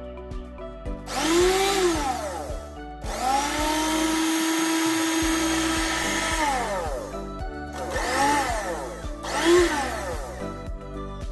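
Sinbo SHB-3047 blender's motor switched on and off in four short runs, each whining up to speed and winding back down; the longest holds a steady whine for about three seconds. The repaired blender is running again. Background music plays underneath.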